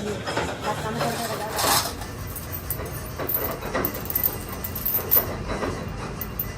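Machine-shop noise: the steady low hum of running workshop machinery, with scattered metallic clinks and knocks and some indistinct voices.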